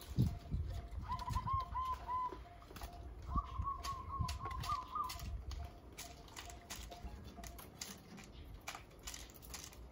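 Zebra doves cooing: two short phrases of quick, bubbling notes, the second a little higher and longer than the first. A low thump comes just after the start, and scattered sharp clicks follow.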